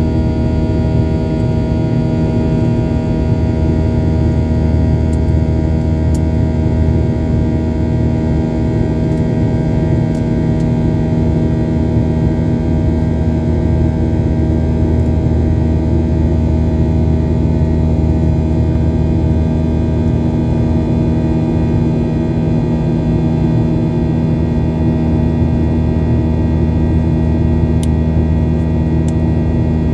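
Airliner engines and airflow droning steadily inside the passenger cabin in flight: a constant low hum with several steady tones under an even rush of air noise.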